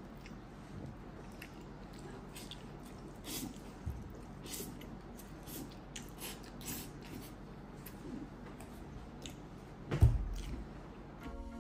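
Close-up sounds of eating okonomiyaki with noodles: chewing, with scattered light clicks of chopsticks against the plate. A single low thump about ten seconds in.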